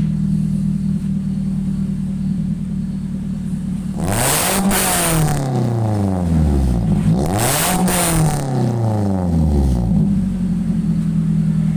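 Toyota Avanza 1.3-litre four-cylinder engine idling through an aftermarket 4-1 header, with a straight pipe in place of the standard silencer and the stock rear muffler. It is blipped twice, about three seconds apart, each rev climbing and then falling back to a steady idle.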